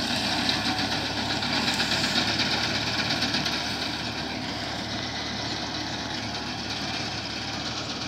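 Tractor engine running while it drives a reaper cutting standing wheat, with a fast steady rattle over the engine; it grows somewhat fainter after about four seconds.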